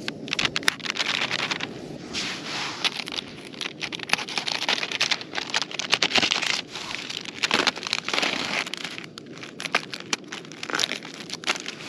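Thin plastic film on a tray of sausages being slit with a knife and pulled back, giving irregular crinkling and tearing throughout.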